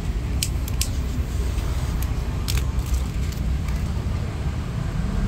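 Steady low rumble of road traffic, with a few short sharp clicks near the start and one about halfway through.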